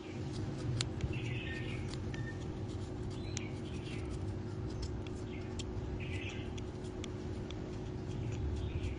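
Small knife shaving a thin bamboo strip: a few short scraping strokes and light sharp ticks, over a steady low hum.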